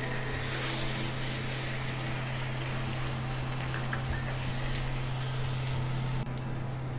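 An egg frying in hot mustard oil in a nonstick wok: a steady sizzle. A steady low hum runs underneath.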